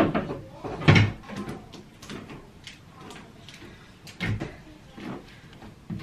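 Plastic jars of body scrub being handled and set down on a metal wire shelf rack, giving a series of knocks and clatters, the loudest about a second in.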